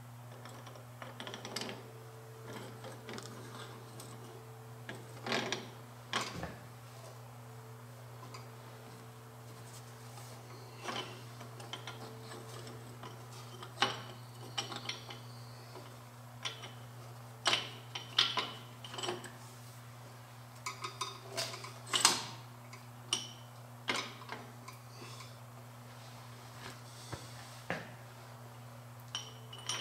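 Scattered metallic clinks and scrapes of steel tools and a long installation rod against an engine block while a bushing is worked into a balancer shaft bore, with the sharpest clinks about two thirds of the way in, over a steady low hum.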